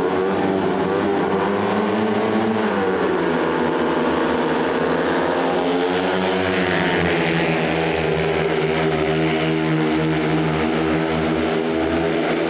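Several 500 cc speedway motorcycles with single-cylinder GM engines racing, a loud, unbroken engine howl whose pitch keeps rising and falling as the riders open and shut the throttle.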